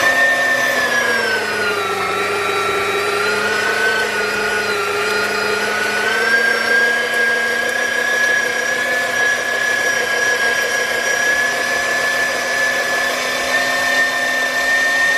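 Electric food processor motor mincing raw pork, a loud steady whine. Its pitch sags about two seconds in, then climbs back and holds steady until it is switched off at the end.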